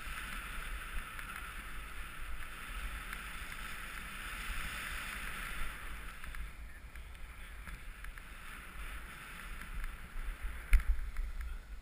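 Skis sliding over snow with a steady hiss, and wind rumbling on a GoPro's microphone. The hiss eases about six seconds in, and a single sharp knock comes near the end.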